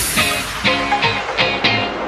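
Background music with a steady beat, struck notes about three times a second.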